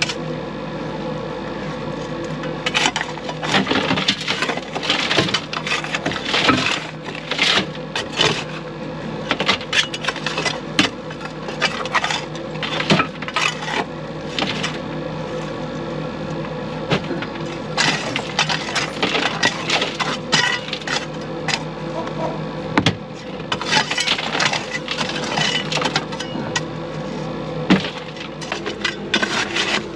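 Loose rock and gravel mucked by hand at the bottom of a mine shaft and loaded into a steel bucket: irregular clusters of clattering knocks and clinks, over a steady hum.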